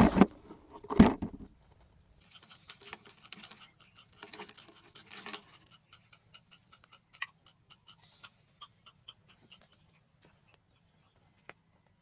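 Two sharp knocks, then a fine patter of seed grains sprinkled onto a cardboard trapdoor in two spells, followed by scattered faint ticks of grains settling.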